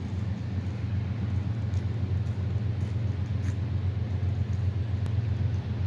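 Steady low rumble of distant diesel locomotives.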